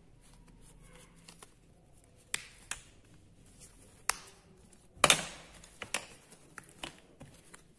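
Scattered sharp clicks and taps as hands handle small plastic snap fasteners, fabric and tools on a hard tabletop, about seven in all, with the loudest knock about five seconds in.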